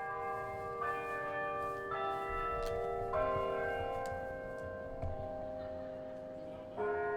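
Bells chiming a slow phrase: four struck notes about a second apart, each ringing on under the next, then a pause and a fresh stroke near the end.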